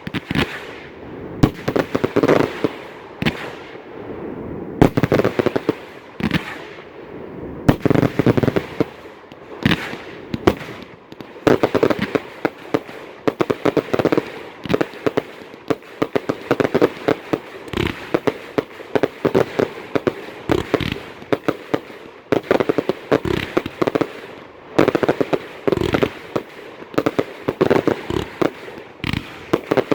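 1.3G display fireworks going off: aerial shells and cakes firing and bursting in a rapid, overlapping string of sharp bangs with only brief lulls.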